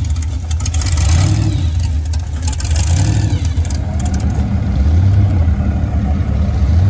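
Supercharged V8 hot rod engine rumbling loudly as it drives past, surging in repeated bursts about once a second. After about four seconds this gives way to a steadier low engine drone as a lifted pickup rolls by.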